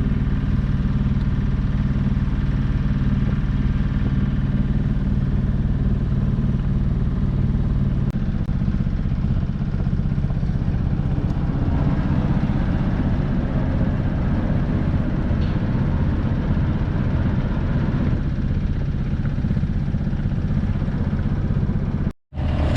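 Hurley 24/70 sailing yacht's engine running steadily under way, with an even hum for the first several seconds that turns rougher and noisier about eight seconds in. The sound cuts out briefly near the end.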